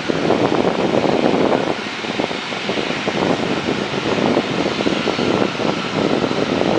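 Gusty wind buffeting the microphone, over the steady distant hum and faint whine of a Boeing 777-300ER's GE90 jet engines as the airliner rolls along the runway.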